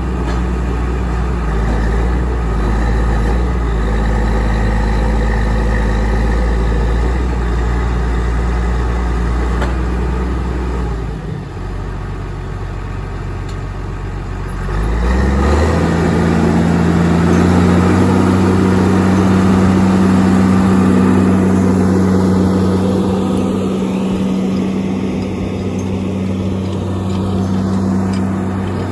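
Diesel engine of a 2003 Fabtek forwarder loaded with hardwood logs, running steadily. It eases off for a few seconds a little before the middle, then revs up about halfway through and stays louder as the machine drives past close by.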